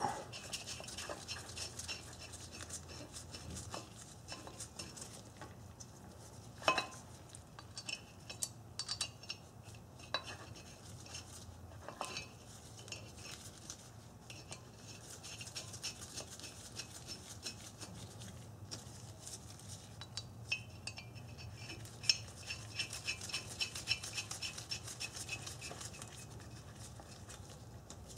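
Light metallic clicks and clinks of steel bolts being fitted and threaded by hand through a brake rotor into a wheel hub, with stretches of fast light ticking and a few sharper clinks, the loudest about seven seconds in.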